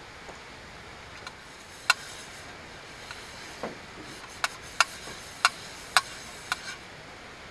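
A small stainless steel pot clinking as it is handled: about six short, ringing metal clicks, one about two seconds in and a quick run in the second half. Under them runs a steady hiss of light rain.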